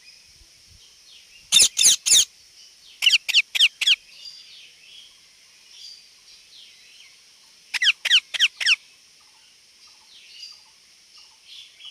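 Parrot giving quick series of short, high-pitched chirps in three bursts: three about a second and a half in, five around three seconds in, and six near eight seconds in, with faint chirps between.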